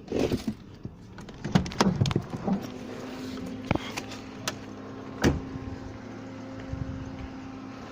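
Clicks and knocks from handling a car door and fittings, a few sharp clicks spread over the first several seconds, with a steady low hum running from about a third of the way in.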